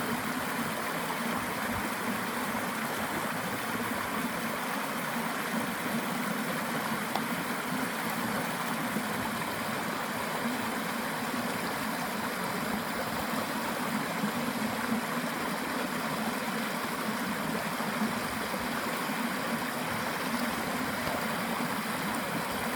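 Stream water flowing and gurgling steadily.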